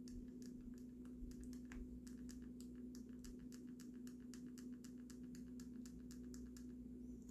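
Faint, rapid clicking of a Samsung Galaxy phone's volume up and down buttons pressed over and over, about five or six clicks a second, to force the phone into EDL (Qualcomm 9008) mode. A low steady hum runs underneath.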